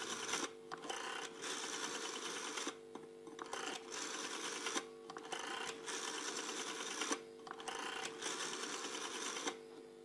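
Rotary telephone dial being dialed digit after digit: each time the finger wheel is released it whirs back on its spring under the speed governor, sending the dial pulses. There is a short pause between each digit as the next one is wound up.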